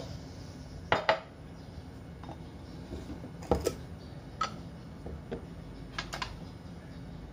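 Jars and containers being handled and set down on a kitchen counter: scattered sharp clicks and knocks, several coming in pairs.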